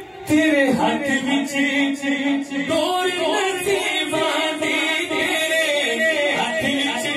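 A man singing a manqabat into a microphone, with no instruments. His voice comes in loudly about a third of a second in on a long held note, then moves through winding, drawn-out phrases.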